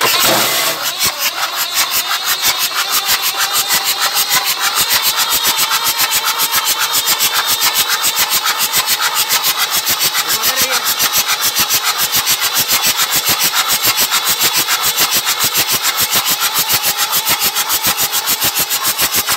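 Kirloskar 4R-1040 four-cylinder diesel being cranked on its electric starter motor in one long, continuous turn-over, a fast even chugging of compression strokes that starts abruptly. With the exhaust manifold off, the cranking pumps water out of the flooded cylinders through the open exhaust ports.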